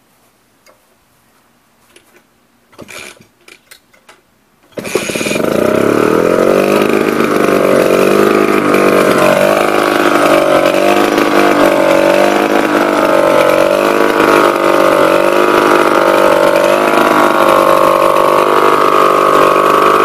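A 1941 Fichtel & Sachs 1.5 hp two-stroke stationary engine being started. A few short rattles come first, then about five seconds in it catches and runs steadily, its speed wavering slightly.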